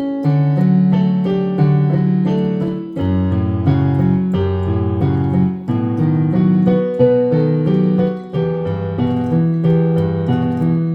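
Electric piano keyboard playing a hymn-style accompaniment: sustained chords over a moving bass line, the chords changing every half second or so.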